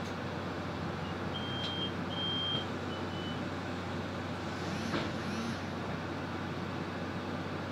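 Steady running noise inside a Solaris Urbino 18 articulated city bus, with a low constant hum. About a second in come three short high beeps, and around the middle there is a brief squeak with a light knock.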